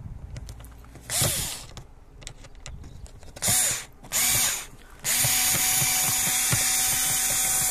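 Cordless drill-driver unscrewing a screw: three short bursts of the motor, each speeding up and winding down, then a steady run of about two and a half seconds that stops just before the end.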